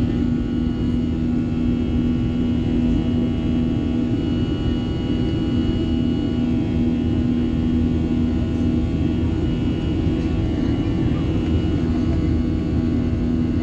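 Airbus A321's jet engines running at climb power, heard from inside the cabin: a steady drone with a low hum and a faint high whine held level throughout.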